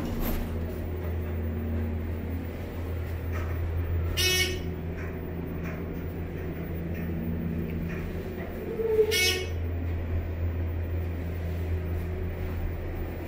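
ThyssenKrupp hydraulic elevator cab travelling down with a steady low hum. A short electronic beep sounds twice, about five seconds apart.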